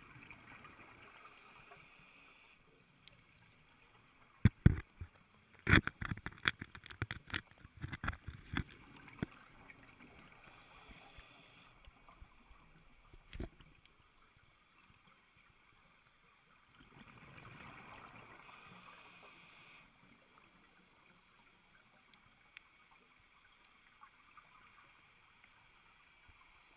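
Underwater through a GoPro housing: a run of sharp knocks and scrapes on the camera housing over several seconds, with one more a little later, as an octopus grabs and handles the camera. Between them come three rushes of a scuba diver's exhaled regulator bubbles, several seconds apart.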